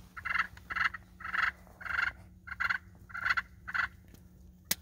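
Wild turkeys yelping: a regular series of about eight short calls, roughly two a second, followed by a single sharp click near the end.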